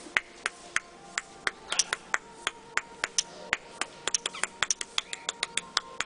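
A run of sharp, separate clicks, a few a second at first and coming faster and closer together from about four seconds in.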